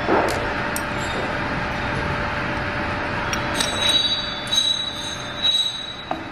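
Metal parts of a cosmetics filling machine clinking against each other as it is taken apart, several short knocks with brief high ringing, over a steady hum of workshop noise.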